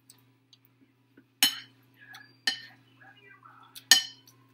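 A metal spoon clinks against a ceramic bowl of chili three times, sharp ringing clinks about a second apart, with soft chewing between them.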